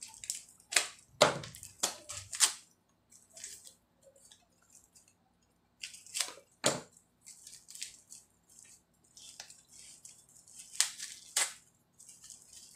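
A parcel being cut and torn open with a cutter: crackling and snapping of packaging and tape, with about eight sharp snaps among lighter rustling.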